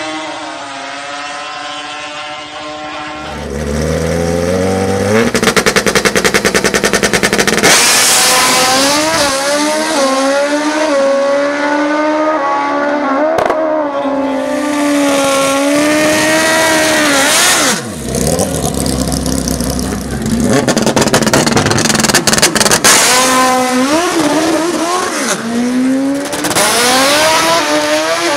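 Racing ATV engines revving hard, their pitch climbing, falling back and climbing again as they run up through the gears. Twice there is a fast, stuttering buzz lasting a few seconds.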